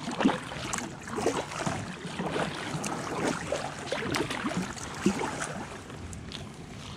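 Gentle water sounds around a slowly moving kayak: irregular small splashes and drips.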